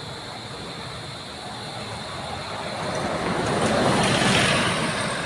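A road vehicle passing close by: its road and engine noise swells over a couple of seconds, is loudest about four seconds in, then fades.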